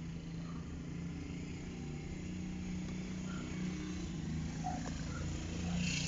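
A motor vehicle engine running steadily, a low hum that grows slightly louder.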